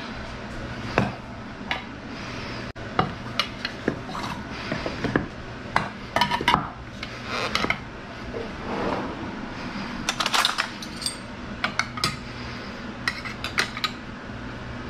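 Serving spoon and utensils clinking and scraping against pans and serving dishes while food is plated, in many short, irregular clinks.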